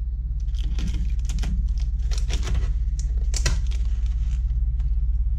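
Irregular clicks, rattles and crinkles as a grease gun's flexible hose, with its metal coupler and spring guard, is handled and pulled from its plastic packaging, mostly in the first few seconds. A steady low hum runs underneath.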